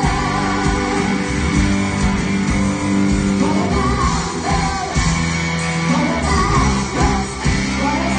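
Live band playing rock music, with a singer's voice over guitar.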